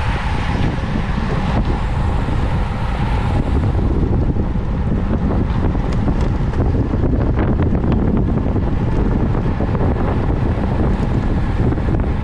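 Wind rushing over the camera's microphone on a road bicycle ridden at race speed. It sounds as a steady low rumble with occasional faint clicks.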